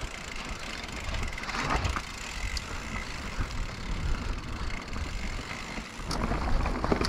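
Mountain bike ridden down a rough trail, heard from a point-of-view camera: a steady rumble of wind and tyres on dirt, with irregular knocks and rattles from the bike.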